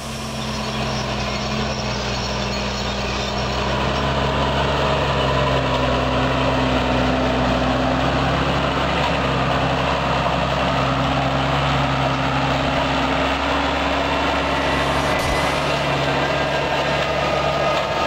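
Tractor engine running steadily under load while pulling a wide corn planter across the field at close range. It grows louder over the first few seconds as the rig approaches, then holds steady with a broad mechanical rumble.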